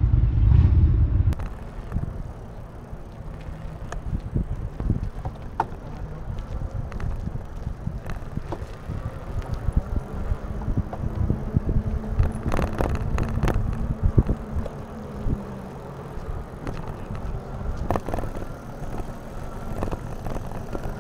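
Moped-style fat-tyre e-bike ridden on a paved path: steady rolling noise with frequent small rattles and clicks from the bike. Wind rumbles on the microphone for the first second or so, and a low steady hum joins for a few seconds in the middle.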